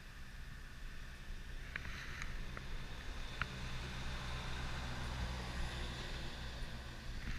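A tractor-trailer truck passing on the road, its engine and tyre rumble swelling to a peak about five or six seconds in. A few light clicks sound about two to three seconds in.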